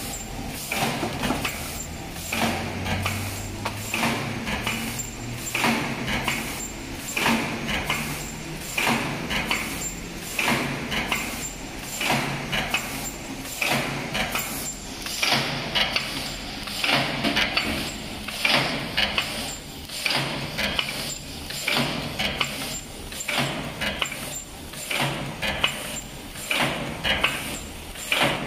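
Fully automatic paper lunch box forming machine running at production speed: a fast, even rhythm of mechanical clacks with hisses from its pneumatic cylinders.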